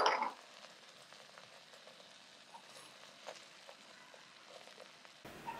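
Hot caramel in a stainless saucepan sizzling as boiling water hits it: the loud hiss dies away within the first half second, then faint bubbling with scattered small pops.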